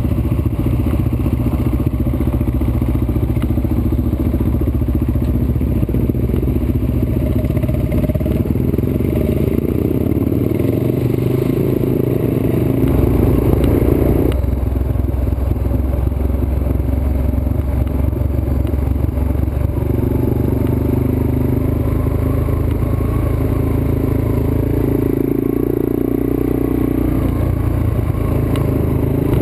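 Trail motorcycle engine running steadily on a rough dirt road, with clatter and scraping from the bike over ruts and stones. The engine note changes abruptly about halfway through and shifts again a few seconds later.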